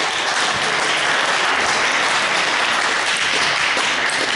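Spectators applauding steadily after a table tennis rally.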